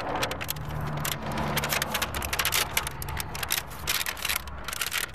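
Stiff masking paper crinkling and rustling as it is pressed and tucked by hand around a wheel's centre cap, with a low steady hum underneath for a couple of seconds in the middle.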